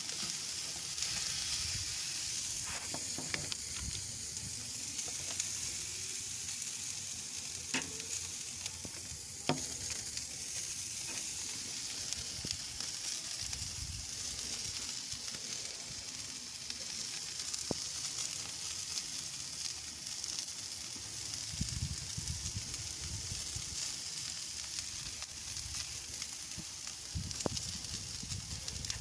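Raw Wagyu steaks sizzling steadily as they sear on a hot charcoal grill grate, with a few sharp clicks as metal tongs set them down.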